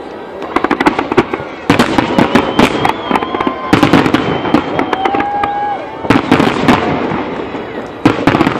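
Fireworks display: aerial shells bursting in rapid, overlapping bangs and crackle, coming in dense volleys about 2 s, 4 s, 6 s and 8 s in.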